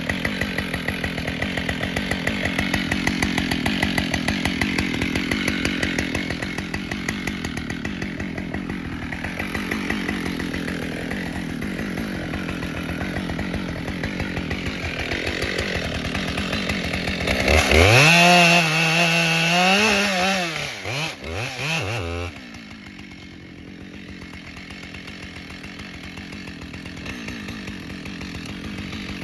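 Two-stroke chainsaw running through a cut. It revs up high and loud about 18 seconds in, with the pitch wavering, then drops back to a lower run after about four seconds.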